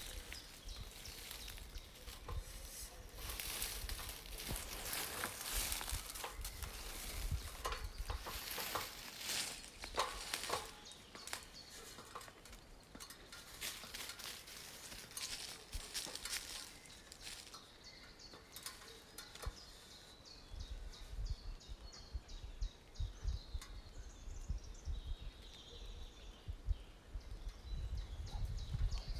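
Irregular rustling, knocks and scrapes of a ladder being set against a tree and climbed, busiest in the first half, with a low rumble in the later part.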